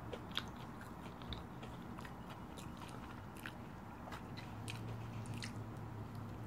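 Close-miked chewing of fast food: faint, scattered crunches and small mouth clicks, then a bite into a cheeseburger slider near the end.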